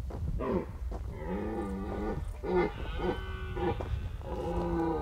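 Red deer stag roaring in the rut: several drawn-out, moaning roars in a row, the first the longest at about two seconds.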